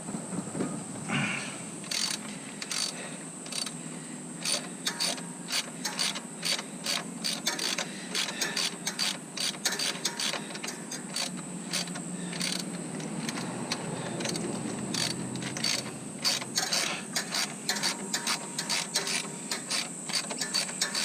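Socket ratchet wrench with a 12mm socket clicking in quick runs as bolts are turned, stopping and starting again and again.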